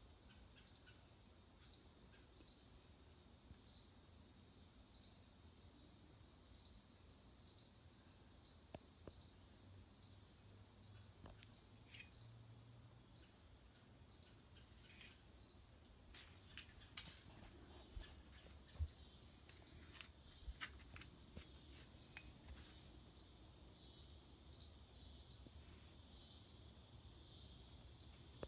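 Faint insects: one chirping at an even pace, about three chirps every two seconds, over a steady higher trill. A few faint clicks come in the middle.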